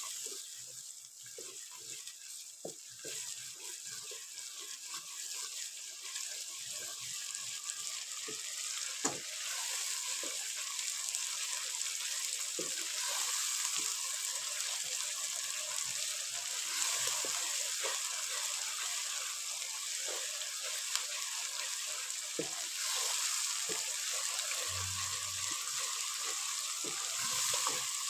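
Tomato-and-spice masala sizzling as it fries in a pot, getting louder about nine seconds in, while a wooden spatula scrapes and knocks against the pot as it is stirred. This is the bhuna stage, the spices being fried down with a splash of water.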